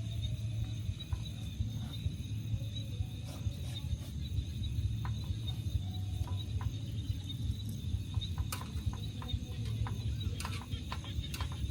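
Insects trilling steadily at a high pitch over a constant low rumble, with scattered small clicks that come more often near the end.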